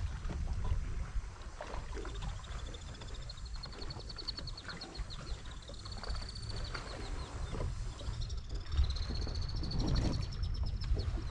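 Spinning fishing reel being cranked, its gears giving a high, finely pulsed whir that rises and falls in pitch and breaks off and restarts as the handle turns. A low rumble of wind and water against the kayak runs under it.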